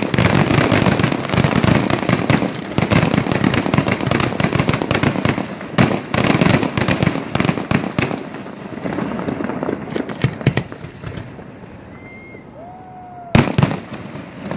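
Fireworks going off in a dense, rapid barrage of bangs and crackles that thins out after about eight seconds into scattered single reports, with one sharp, loud bang near the end.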